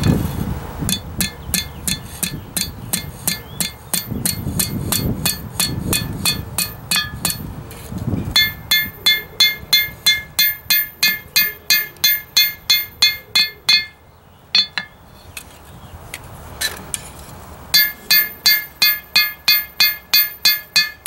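Hand hammer forging hot steel on an anvil, drawing out and thinning a knife blade. The first blows are quicker and duller. Then come two runs of steady blows, about three a second, each with a clear ring from the anvil, broken by a pause of about three seconds.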